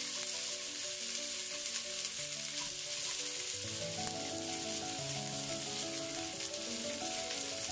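Sliced onions sizzling in hot oil in an aluminium pressure cooker, just tipped in to fry until brown, a steady crackling hiss.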